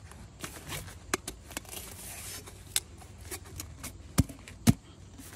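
Round copper downspout elbows handled in gloved hands: scattered light metal taps and scrapes, then two sharp knocks a half second apart, about a second before the end, as one elbow is fitted onto another piece.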